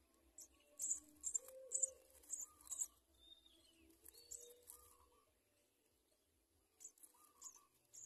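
A nestling's thin, high begging chirps, given in short clusters through the first three seconds, again around the middle, and once more near the end.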